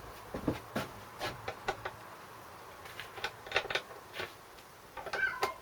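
Irregular metallic clicks and taps of a spanner working on a small engine.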